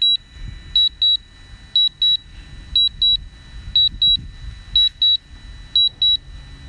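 DJI Mavic Pro remote-controller warning beeps: a high double beep repeating about once a second. It is the alarm for a weak remote-control signal as the drone flies back.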